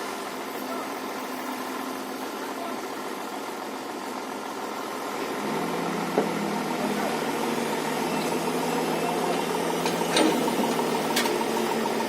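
Heavy construction machinery engine running steadily. It grows louder about five and a half seconds in, with a few short sharp knocks in the second half.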